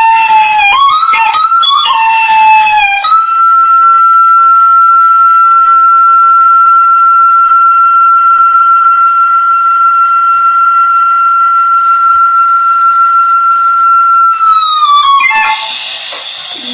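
A Hmong raj (bamboo flute) playing. It gives a few short sliding notes over the first three seconds, then holds one long steady note for about eleven seconds, which bends down as it ends.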